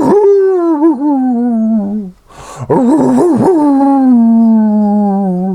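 A dog howling loudly: two long, wavering howls in a row, each sliding down in pitch.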